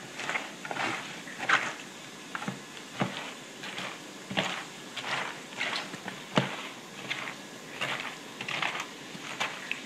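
Chopped cabbage being mixed by hand with kimchi paste in a wooden bowl: irregular wet crunching and squishing of the leaves, one or two strokes a second.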